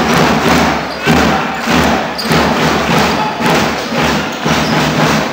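Home supporters beating a drum in a steady rhythm, about two beats a second, over the noise of an arena crowd.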